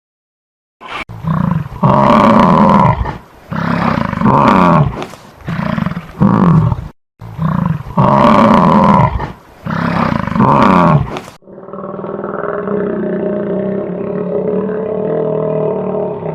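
Loud wild animal calls: a series of long pitched cries, with the same run of calls heard twice. About eleven seconds in, a different, continuous and more muffled call takes over.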